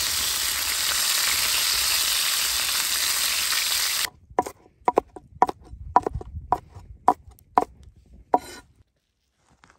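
Chicken frying in a pan, a loud steady sizzle that cuts off about four seconds in. Then a large knife chopping vegetables on a wooden cutting board: about eight sharp chops, roughly two a second.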